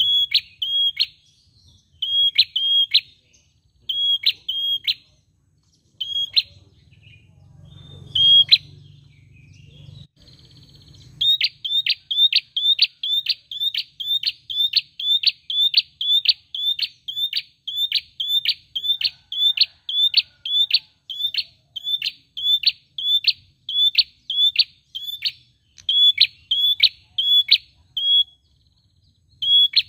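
A caged rufous-headed tailorbird ('prenjak') calling with loud, sharp, repeated notes. For the first third they come in short clusters with pauses, then run on in a fast unbroken series of about two notes a second.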